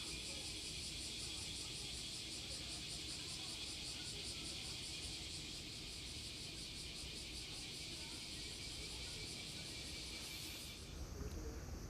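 A steady, high-pitched insect buzz that pulses rapidly and evenly over a low rumble, cutting off suddenly near the end.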